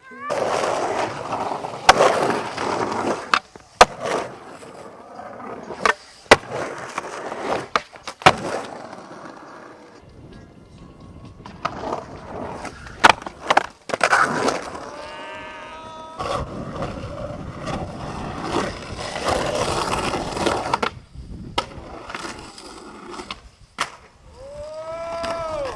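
Skateboard wheels rolling and carving on the concrete of a drained, painted pool, broken by a series of sharp clacks and slams as the boards hit the coping and land tricks.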